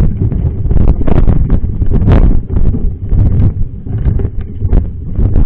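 Heavy wind rumble buffeting the microphone, with frequent sharp knocks and rattles, as of a mountain bike jolting over a rough trail.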